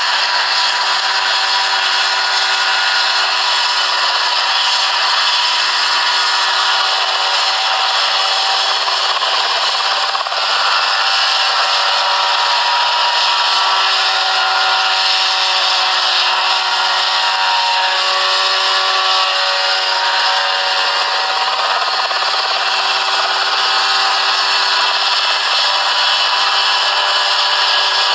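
Small ultralight helicopter's engine and rotor running steadily at high speed in a low hover, a loud buzzing drone whose pitch wavers a little about halfway through.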